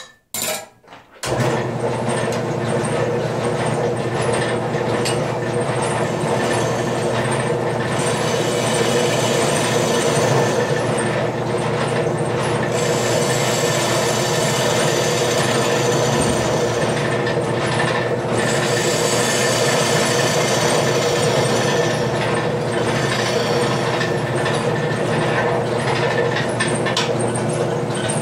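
A wood lathe starts up about a second in and then runs steadily with a humming motor, while a bowl gouge roughs the outside of a wet mulberry bowl blank, the cutting noise coming and going in stretches.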